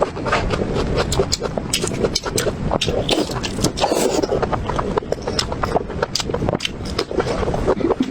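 Close-miked eating sounds: wet chewing and lip-smacking on braised pig's trotter, a dense irregular run of sticky clicks and smacks.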